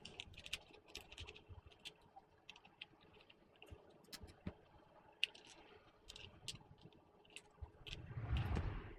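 Faint, irregular clicks and taps of small plastic drone parts and tools being handled, with a brief low rustle near the end.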